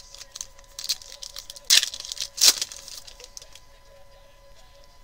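Foil trading-card pack crinkling in the hands and being torn open, with two loud rips near the middle followed by softer rustling of the wrapper.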